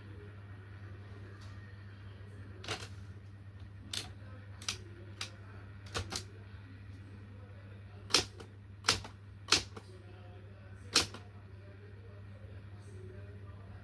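Typewriter keys struck slowly and unevenly, about ten sharp clacks, the loudest coming in the second half.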